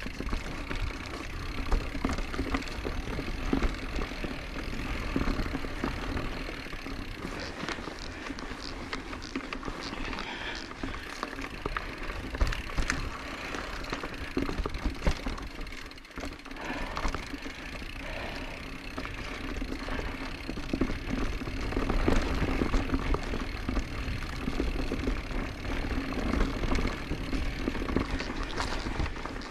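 Orbea Occam mountain bike being ridden over a dirt trail: a steady rush of tyre and trail noise with frequent clicks and rattles from the bike, and wind buffeting the microphone. The noise dips briefly about halfway through.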